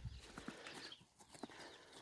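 Young turkeys feeding on wheat grass: faint scattered pecking taps with a few soft, high, short peeps.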